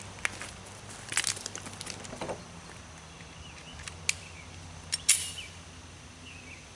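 Footsteps crunching on wood chips and gravel, then a few sharp clicks from handling a Glock 43 pistol, the loudest about five seconds in.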